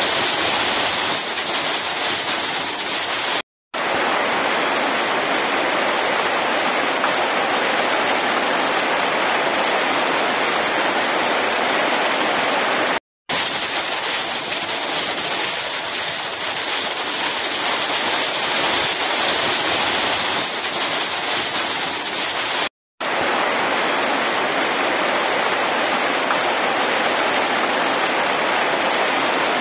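Heavy rain pouring down steadily onto the road, lawn and hop vines, a dense even hiss of drops. The sound cuts out completely for a split second three times.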